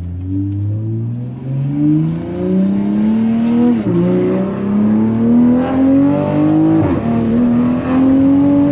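Toyota GR Supra (MK5) with an HKS titanium exhaust and catless downpipe accelerating hard at full throttle. The engine note climbs steadily in pitch, drops suddenly at upshifts about four and seven seconds in, and climbs again each time.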